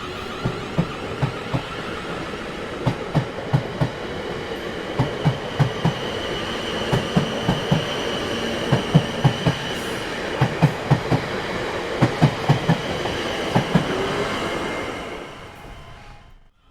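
Train wheels clattering over rail joints: a clickety-clack of knocks in groups of two and three over a steady rumble, with a high steady whine from the wheels on the rails. The sound fades out about fifteen seconds in.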